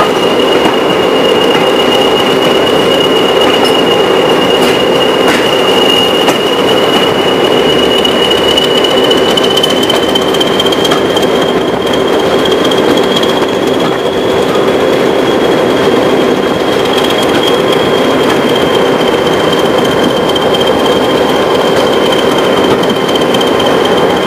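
English Electric Class 20 diesel locomotive D8188 working under power, its engine running hard with a steady high turbocharger whistle that rises a little in pitch about ten seconds in.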